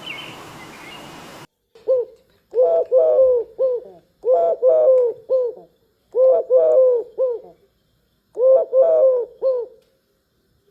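A dove cooing: four phrases of several soft, low coos each, starting about two seconds in, with short gaps between phrases.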